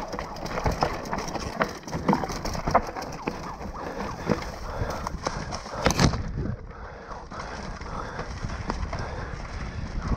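Mountain bike rattling and clattering down a rocky, root-strewn forest trail, with tyres crunching over stones and rushing wind noise. There is a hard knock from a big impact about six seconds in.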